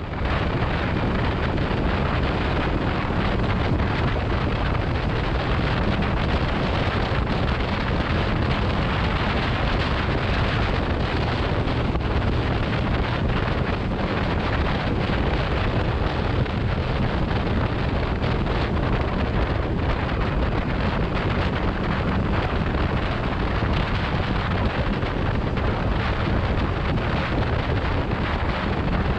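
Steady wind noise buffeting the camera microphone on a moving motorcycle, with road and engine noise blended underneath.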